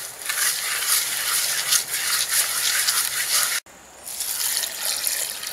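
Hands mixing sliced onions and ground spices in a pot; after an abrupt cut about three and a half seconds in, a milky liquid is poured from a metal bowl into the pot.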